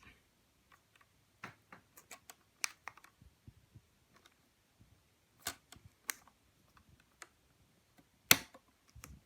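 Scattered small clicks and taps of hands pulling a RAM memory module out of an iMac's memory slot, with one sharper, louder click near the end.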